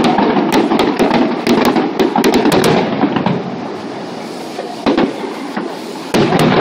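Fireworks display: a dense run of crackling pops for the first three seconds, dying away, then a sharp bang about five seconds in and a louder burst just after six seconds.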